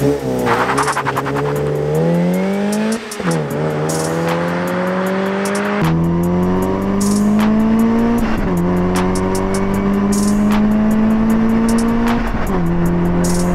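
Mazda NC Miata's 2.0-litre four-cylinder accelerating through the gears: engine pitch climbs steadily, then drops at each upshift, about three times. Background music with a steady beat plays underneath.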